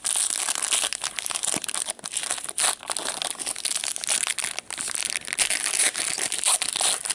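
Plastic foil wrapper of a 2016-17 Upper Deck MVP hockey card pack being torn open and crinkled by gloved hands: a dense, crackly crinkling full of small snaps.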